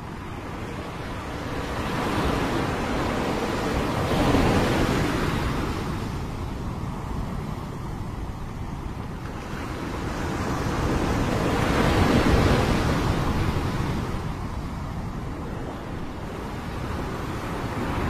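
Small sea waves breaking and washing up a pebble beach. The surf swells and fades twice, about eight seconds apart, and another wash builds near the end.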